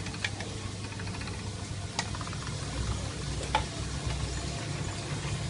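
Food being stirred in a pan with a utensil, with a few sharp clicks of the utensil against the pan about two and three and a half seconds in, over a steady low hum.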